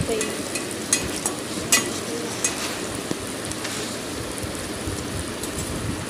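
Chopped green chillies sizzling as they fry in hot oil in a steel pan, with a few clinks and scrapes of a steel spoon stirring them.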